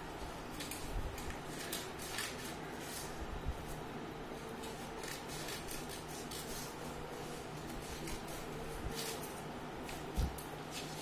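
Scissors snipping through a sheet of white paper in a run of short, irregular cuts. A dull thump near the end.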